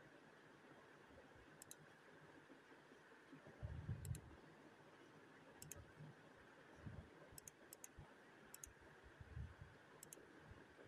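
Near silence: faint room hiss with several faint, sharp double clicks scattered through it and a few soft low thumps, the strongest about four seconds in.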